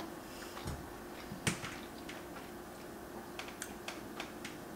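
Quiet mouth sounds of someone chewing a bite of cheeseburger: a few soft clicks and smacks, the clearest about one and a half seconds in, over a faint steady hum.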